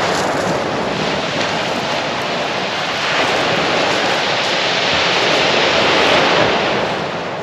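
Surf breaking on a shingle beach: a steady rushing hiss of waves that swells from about halfway through and eases near the end.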